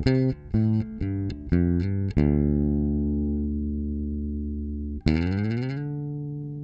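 Short electric guitar intro riff: a quick run of picked notes, then a chord left ringing and slowly fading. About five seconds in, a second chord is struck and slid up in pitch, then held.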